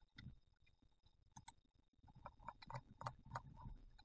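Faint computer mouse clicks, a scattering of short single clicks, most of them in the second half, over near silence.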